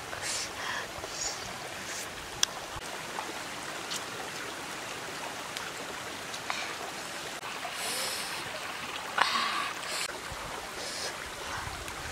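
Shallow stream running steadily over rocks, with a few short sharp clicks on top.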